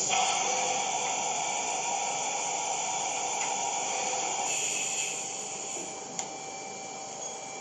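Southwest Industries LPM TRAK vertical machining center during a tool change: a loud hiss of air starts abruptly, holds steady for about five seconds and then fades. A single sharp click follows about six seconds in.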